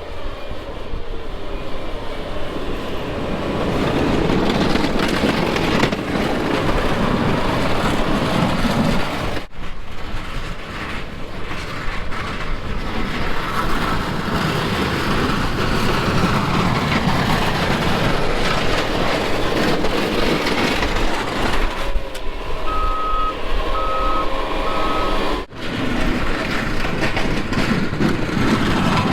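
Snow-removal vehicle engine running steadily, with a backup alarm beeping three times about three-quarters of the way through.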